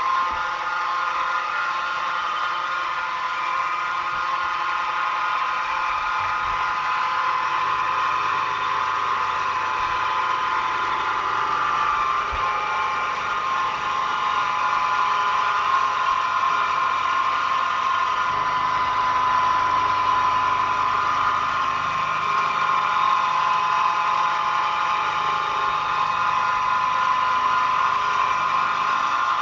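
Milling machine spindle running steadily with a high whine while a 1/8 inch end mill cuts a slot in a metal part as the rotary table turns it.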